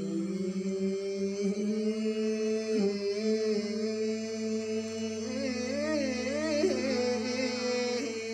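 Men singing a slow traditional chant in long held notes, the voices wavering in ornamented turns about two thirds of the way through.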